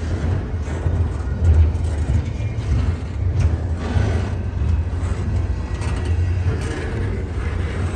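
Norfolk Southern freight train rolling slowly past: a steady low rumble from the wheels on the rails, with scattered clicks and clanks from the cars.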